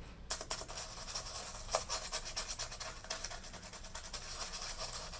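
Rapid scratchy rubbing and fine ticking on a laptop keyboard's keys as the 0 key is scrubbed with alcohol, with one sharper click a little under two seconds in.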